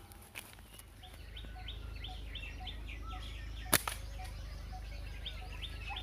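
A bird calling in a fast run of repeated chirps, about four a second, over a steady low rumble. One sharp snap, like a slingshot shot, comes a little under four seconds in and is the loudest sound.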